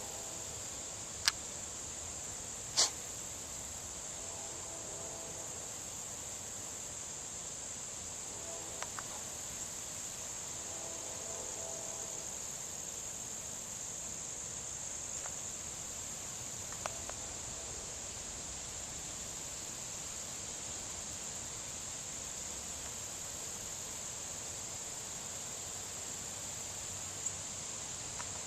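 Steady high-pitched chorus of crickets, with two sharp clicks in the first three seconds.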